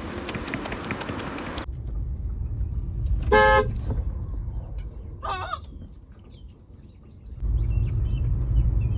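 A car horn honks once, a short half-second blast about three and a half seconds in.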